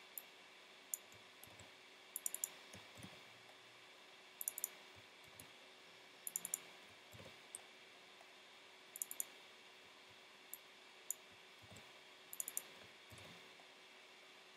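Faint, sharp clicks of a computer mouse and keyboard, coming in small clusters of two to four every couple of seconds.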